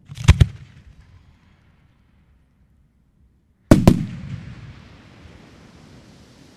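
Fireworks bursting: a quick pair of sharp bangs with a short echo, then after a pause of about three seconds another close pair of bangs followed by a long hiss that slowly fades.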